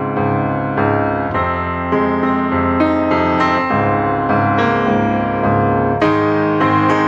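Background music: a piano playing a steady run of notes and chords, changing about every half second.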